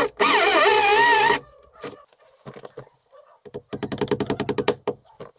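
Hammer drill boring deeper into a brick wall, its pitch wavering as the bit loads and frees up, stopping about a second and a half in. Later comes a quick even run of light hammer taps at the wall.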